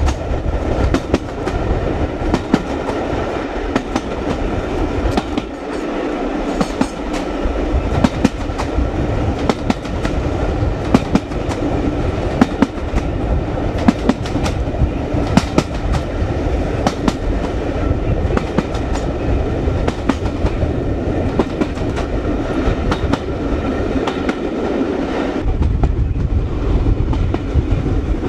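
Passenger carriage of a steam-hauled train running at speed, heard from the rear carriage's open window: a steady rolling rumble with the wheels clicking irregularly over the rail joints. Wind buffets the microphone, and the deep rumble grows stronger about 25 seconds in.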